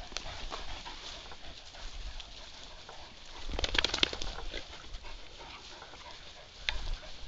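Large black dog breathing and sniffing at close range, with a quick run of loud sniffs about three and a half seconds in and another short one near the end.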